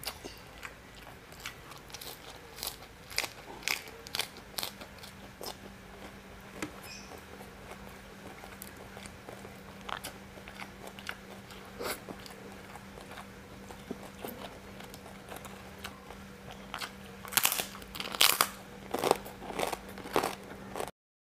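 Close-up eating sounds of a person eating by hand: scattered chewing and mouth clicks, then a run of loud, crisp, crunchy bites near the end. The sound cuts out abruptly just before the end.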